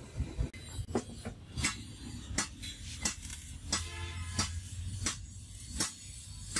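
Sharp metallic clinks and taps, about nine of them at uneven intervals, over a low steady hum.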